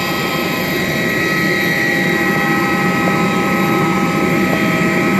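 A parked jet airliner's machinery running: a steady high whine of several held tones over a constant rushing noise.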